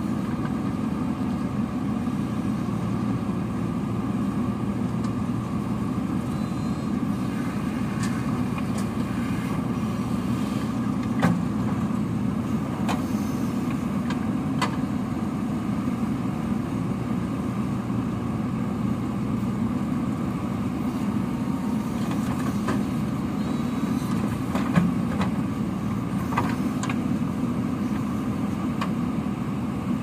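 Diesel engine of a JCB 3DX backhoe loader running steadily under load as it works its backhoe arm loading gravel into a tractor trolley, with a few sharp knocks, the clearest about a third of the way in and again later on.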